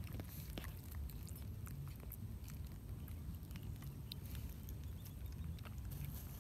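Baby monkeys eating peeled fruit while fingers peel more: soft, scattered little clicks and smacks over a low steady rumble.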